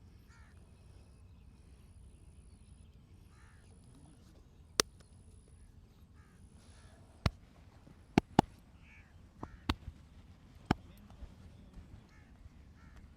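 Joint cracks during a massage: about six sharp, loud cracks, starting about five seconds in, two of them in quick succession.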